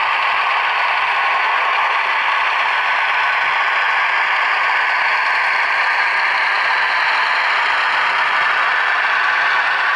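Model railcar's sound decoder playing a Poyaud diesel engine sound through its small onboard speaker, running steadily with a rattling clatter as the model rolls along the track. There is almost no bass.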